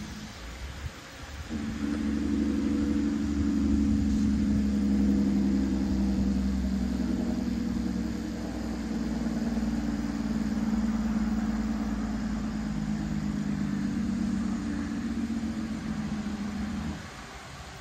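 An engine running steadily at a nearly constant pitch. It comes in about a second and a half in and stops shortly before the end.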